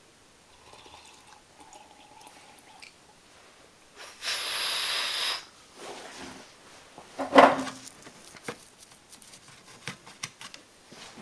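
Improvised sound effects made by hand and mouth: small scattered clicks and rustles, a loud hiss lasting about a second around four seconds in, and a sharp loud sound a few seconds later.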